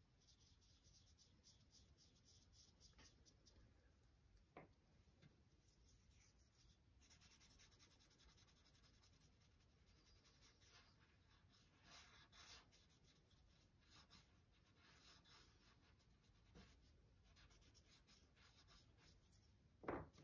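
Faint scratchy strokes of a Mont Marte extra soft oil pastel rubbing back and forth across paper, with a light knock about four seconds in and a sharper one near the end.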